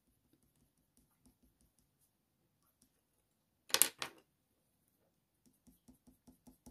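Two sharp clacks a fraction of a second apart, about four seconds in, as a wooden Faber-Castell Polychromos colour pencil is put down and another picked up. Otherwise very quiet, with faint light ticks of pencil strokes on paper near the end.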